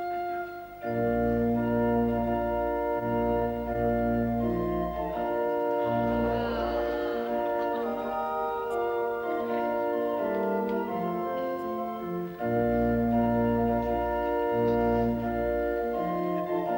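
Organ playing slow, sustained chords over a deep held bass, starting about a second in. The phrase pauses briefly and starts again about twelve seconds in.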